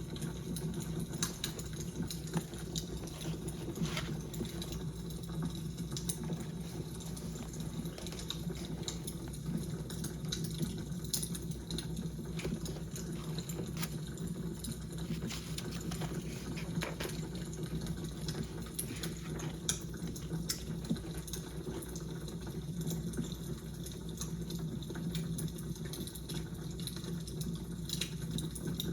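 Fire crackling: irregular sharp pops and snaps over a steady low hum.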